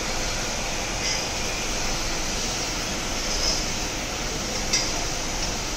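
Steady, even rushing background noise in a cattle shed, with one sharp click a little before the end.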